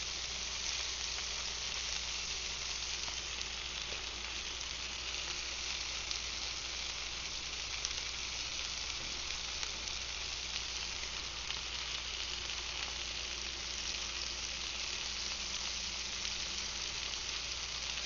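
Fish fillets sizzling steadily in melted butter on a very hot grill while being blackened.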